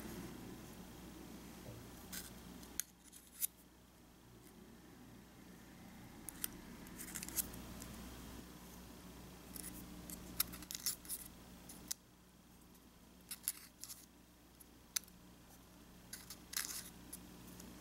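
Aluminium foil baking cup crinkling and clicking in the fingers as small balls of bread dough are pressed into it: scattered short, crisp crackles in small clusters.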